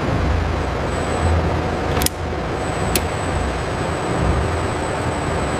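Steady, heavy mechanical rumble of machinery running, like an industrial or engine sound bed. Two sharp clicks about a second apart come a third of the way in, and a faint high whine runs over it.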